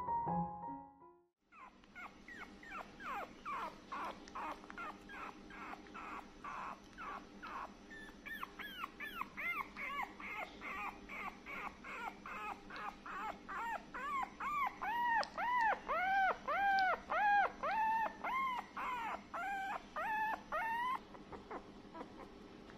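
Small puppy whimpering in a long run of high-pitched whines, about two a second, each rising and then falling in pitch. The whines grow louder about eight seconds in and stop near the end.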